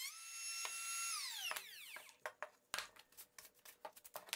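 A trim router mounted under a DIY router table whines at full speed, its pitch lifting slightly as the cut ends, then it is switched off and winds down over about a second. Several light wooden knocks follow as the workpiece is handled.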